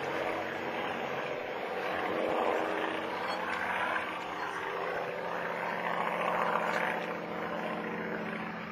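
Messerschmitt Bf 109 G-10 fighter's V12 piston engine and propeller droning in flight overhead. The drone swells twice and begins to fade near the end.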